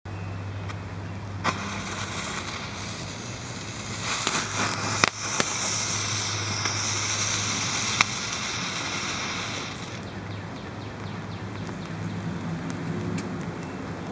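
Small firework fountain lit and spraying sparks, a loud hiss from about 4 seconds in until it dies down near 10 seconds, with a few sharp cracks and pops.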